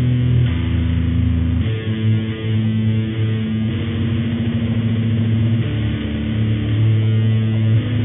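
Altered radio-style static: a steady hiss under held, droning low notes that move to a new pitch about every two seconds, giving a distorted, music-like drone.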